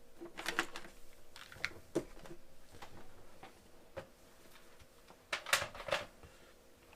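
A few scattered clicks and short rustles of small objects being handled, with the loudest cluster about five and a half seconds in.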